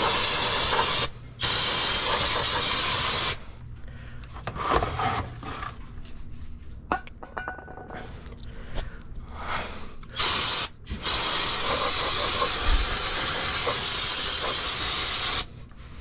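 Aerosol brake parts cleaner sprayed onto a drum-brake backing plate in hissing bursts: two long ones in the first three seconds, then, after several seconds of softer scattered noise, a short burst followed by a long one of about four seconds.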